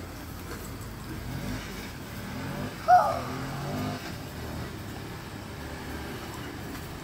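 A vehicle engine revving, its pitch rising and falling over a few seconds. About three seconds in comes a sudden loud, short pitched cry.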